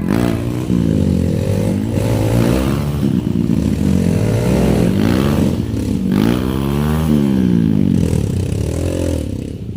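Trail motorcycle engines revving up and down again and again, the pitch rising and falling every second or so over a steady low engine drone.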